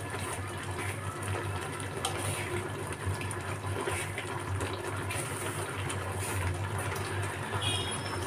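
Thick mango chutney syrup bubbling in a nonstick kadhai while a spatula stirs through it, over a steady low hum.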